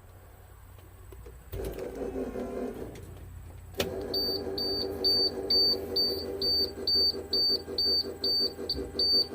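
A school bus is switched on about four seconds in: a steady electrical hum starts together with a high-pitched electronic warning beeper, about three short beeps a second.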